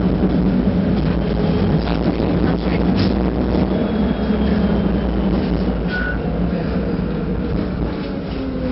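Tram running, heard from inside the car: a steady rumble of motors and wheels on the rails, with scattered clicks and knocks. Near the end a whine falls in pitch.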